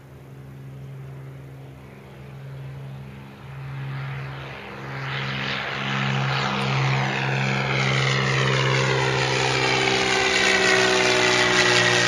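Cessna 182 Skylane's piston engine and propeller at takeoff power, climbing out and growing steadily louder as it comes toward overhead. From about halfway in, a sweeping, phasing sound is laid over the steady engine note.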